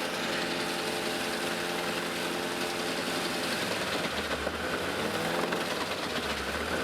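Gandini Meccanica Connecticut industrial wood chipper and the Claas Xerion tractor that drives it, engine running steadily. About four seconds in, and again near the end, the engine note dips and climbs back.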